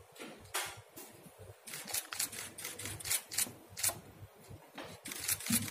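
Camera shutters clicking in quick irregular runs, several photos taken in succession during a posed handover of a document.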